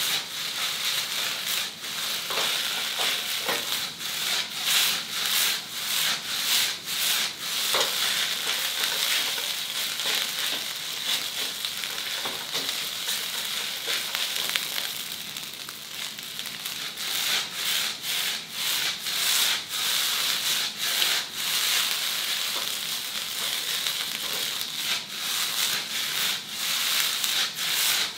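Egg and rice sizzling in an iron wok pan, with a spatula repeatedly scraping and chopping against the iron and the rice being tossed. The strokes thin out for a few seconds around the middle, leaving mostly the sizzle.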